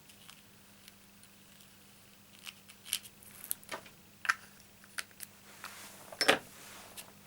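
Scattered light clicks and taps of small crafting items handled on a tabletop, with a brief paper rustle and a sharper knock about six seconds in.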